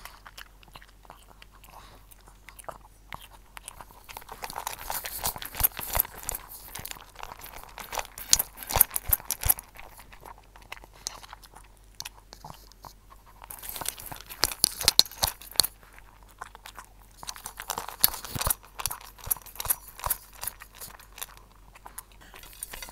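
Shih Tzu licking up dry kibble from a stainless steel bowl, close-miked at the rim: the tongue laps and the pellets click and rattle against the metal in three bursts with quieter gaps between. The dog swallows the kibble whole without chewing, so there is no real crunching.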